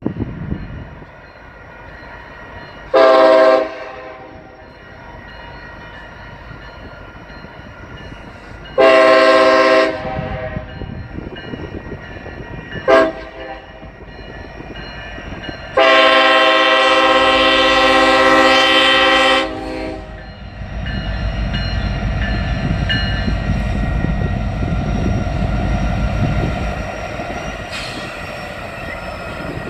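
Union Pacific diesel freight locomotive's air horn sounding four blasts: two short, one very brief, then a long one of about four seconds, the pattern of a grade-crossing warning. Then the low rumble of the diesel locomotives grows loud as they pass close by.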